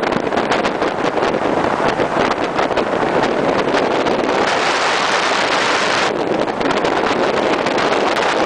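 Speedboat under way at speed: wind buffeting the microphone over the steady rush of water and the boat's motor. The high hiss eases a little about six seconds in.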